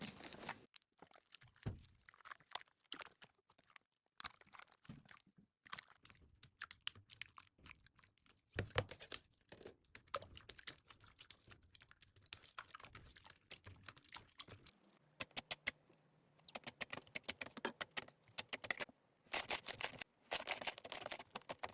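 Slime being squeezed and poked by hand, giving irregular runs of small sticky clicks and crackles with short pauses between them, growing thicker and faster in the second half.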